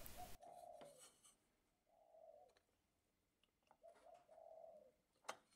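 A dove cooing faintly: a few soft, low notes in a row, with one sharp click near the end.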